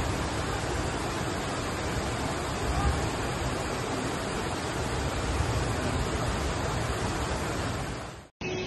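Muddy floodwater rushing down a street in a flash flood, a loud steady torrent that sweeps parked cars along. It cuts off abruptly near the end.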